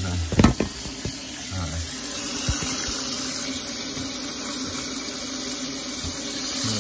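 Kitchen sink faucet's spray head running steadily into the sink, with a couple of sharp knocks about half a second in.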